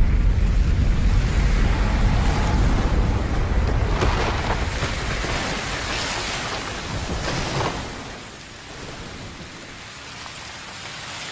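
Film sound effect of a blast's aftermath: a deep rumble fading over several seconds, a sharp crack about four seconds in, and rushing noise swells that die to a quieter hiss near the end.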